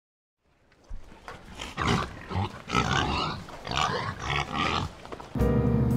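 Pigs grunting and oinking in a run of about five separate calls, starting about a second in. Near the end a steady low hum starts, louder than the calls.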